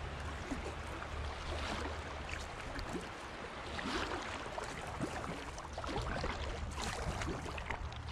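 Moving river water gurgling and lapping against a kayak's hull, with irregular splashes from the paddle every second or two over a steady low rumble.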